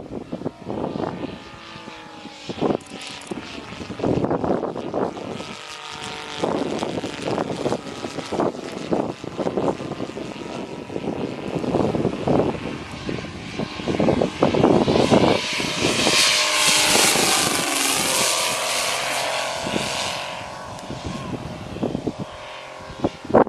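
Saito FG-60R3 60cc three-cylinder radial gasoline engine on a giant-scale radio-controlled Zero, running with its propeller, the pitch rising and falling as the throttle changes. It is loudest for several seconds about two-thirds of the way through.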